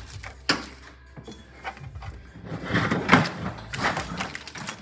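Handling noises from a car's wiring harness being pulled and sorted by hand: a sharp click about half a second in, then rustling with small knocks from about halfway through.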